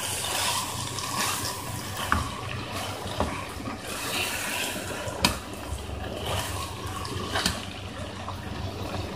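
Minced meat and potato chunks sizzling as they fry in a pot, stirred with a spatula that scrapes through the mixture and knocks sharply against the pot a few times.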